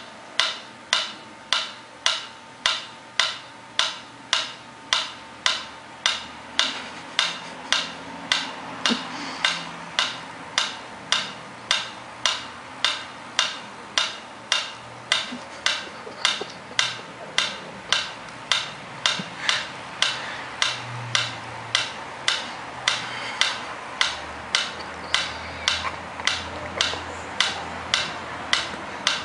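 Mechanical pyramid metronome ticking steadily, about two sharp ticks a second.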